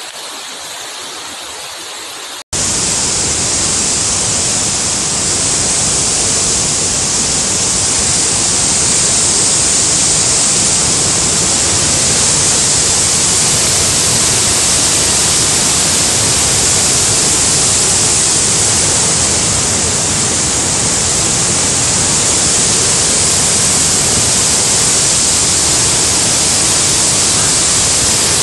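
Loud, steady rushing of a muddy floodwater torrent cascading over rocks. It starts abruptly about two and a half seconds in, after a quieter stretch.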